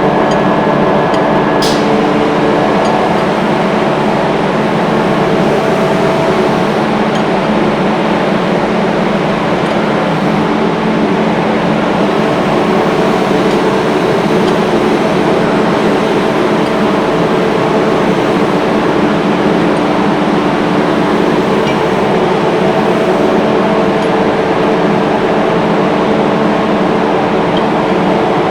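Rotary screw air compressor running steadily: a loud, even machine noise with several steady hum tones over it. A short tick sounds about two seconds in.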